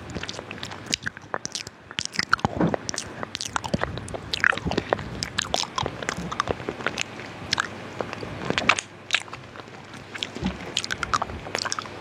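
A hard lollipop being bitten and crunched in the mouth close to the microphone: irregular sharp cracks and crunches mixed with wet mouth clicks.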